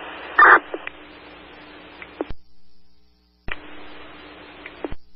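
Radio scanner channel open with no voice on it: a steady static hiss. It is broken by a short burst about half a second in and by sharp clicks as transmissions key up and drop. The channel cuts to silence twice when the squelch closes.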